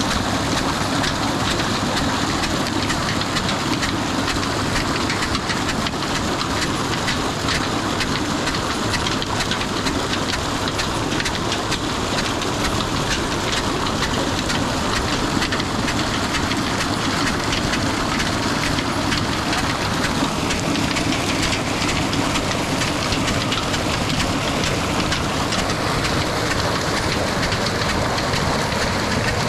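Water gushing steadily from a tubewell's outlet pipe into a brick tank, with the even rhythmic beat of the old black diesel engine that drives the pump running under it.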